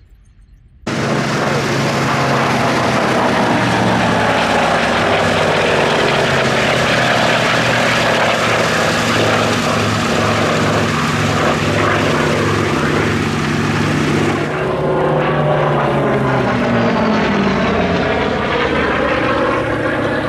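Hawker Sea Fury T.20's Bristol Centaurus radial piston engine and propeller in a loud flypast, cutting in abruptly about a second in. The engine note slides down in pitch as the aircraft passes.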